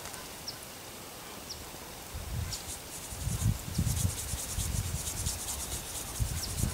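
Salt shaker being shaken hard, the salt grains rattling in quick strokes about three a second, starting a couple of seconds in.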